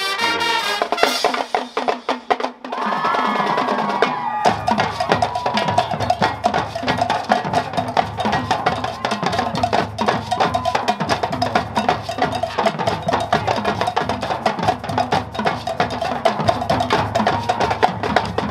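High school marching band playing a Latin-style show tune: dense, fast percussion and drums drive the rhythm, with horns holding long notes over it from about three seconds in and a deeper drum low end joining about a second later.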